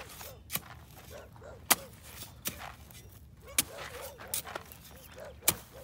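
Steel shovel blade chopping and scraping into dry, hard field soil, six or seven sharp strikes at uneven intervals about a second apart. The strokes are re-marking furrows for hand sowing.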